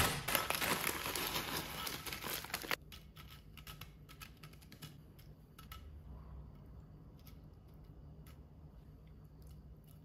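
A foil snack bag of Doritos corn chips being handled and crinkled for nearly three seconds, cutting off suddenly; after that, only faint scattered light clicks.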